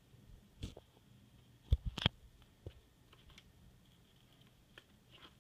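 A few faint, short clicks and light knocks, the loudest a quick cluster about two seconds in, over a faint steady high-pitched hum.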